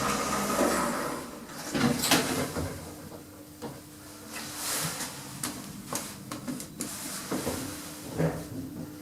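Passenger lift with a first-generation KONE EcoDisc gearless machine in operation: doors sliding and the car travelling. Sharp clicks in the first couple of seconds, then a steady low hum with scattered clicks.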